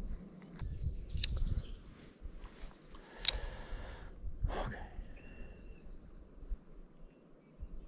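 Wind buffeting the microphone in uneven low gusts, with a few short bird chirps and a brief whistled note about five seconds in.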